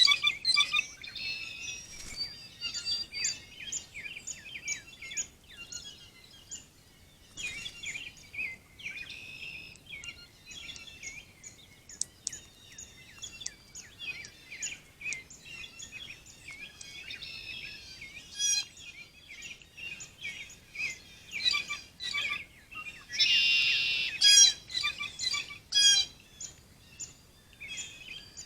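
Songbirds chirping and singing. Several birds give short, repeated chirps and trills, with a loud, dense flurry of calls late on.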